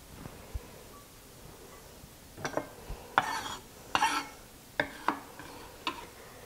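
A knife blade scraping and clacking on a wooden cutting board as diced onion is pushed off it: about half a dozen short scrapes starting about two and a half seconds in.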